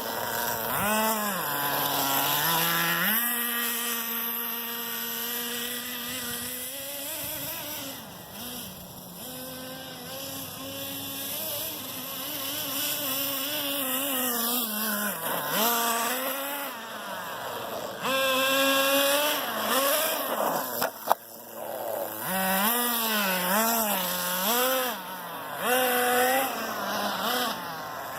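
Small engine of the Green Volcano S30 running and being revved up and down repeatedly, its pitch rising and falling every second or two, after two years sitting unused. A single sharp click about three quarters of the way through.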